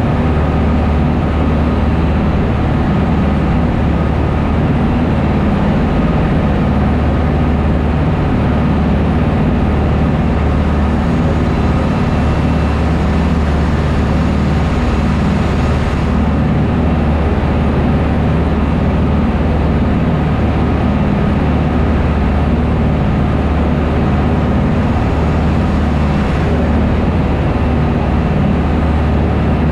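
Small shuttle boat's engines running steadily under way, a loud continuous low drone, with the rushing wash of the churning wake behind it.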